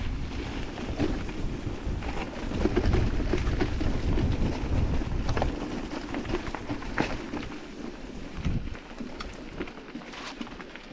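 Electric mountain bike riding over a rough, muddy trail: a low rumble of wind on the action-camera microphone and tyre noise, with scattered clicks and rattles from stones and the bike, easing off about eight seconds in.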